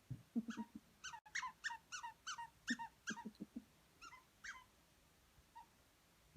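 Squeaky toy purse squeaking in quick runs of short squeaks, many falling in pitch, as a dog chomps on it; the squeaking stops about two-thirds of the way through.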